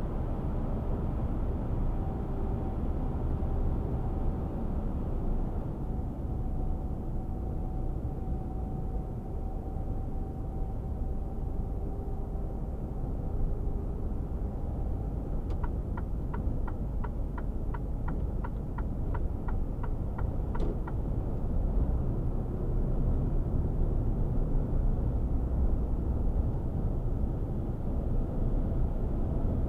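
Cab interior sound of a Mercedes-Benz Actros 1848 truck cruising on the motorway: its straight-six diesel and the tyres give a steady low rumble, with a faint whine that slowly falls in pitch through the first half. Midway, a run of quick ticks, about three a second for some five seconds, ends in one sharper click.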